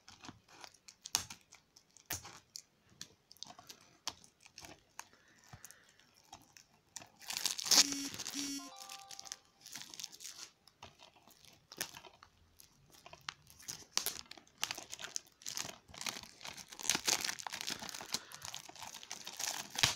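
Plastic shrink-wrap on a DVD case being slit with a knife, then torn and crinkled off by hand: scattered clicks and rustling, with louder tearing bursts about eight seconds in and through the last few seconds.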